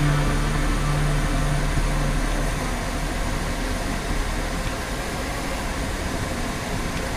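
Steady road and engine noise heard from inside a moving car. Radio music fades out in the first couple of seconds.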